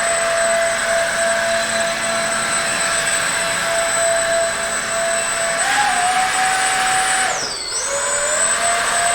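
Small brushless motor and propeller of a 3D-printed RC hovercraft running at a steady high whine. The pitch rises a little about six seconds in, then drops sharply and climbs back as the throttle is eased off and opened again.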